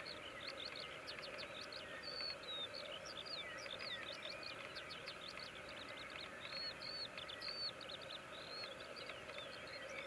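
Pipits singing loudly with a dense stream of quick, high chirps and trills. Underneath runs the faint, continuous low bubbling of lekking black grouse.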